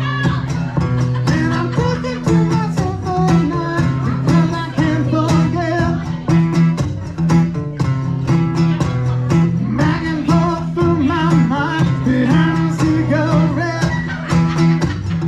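Live band music with guitar over a steady beat; an instrumental passage with no sung words.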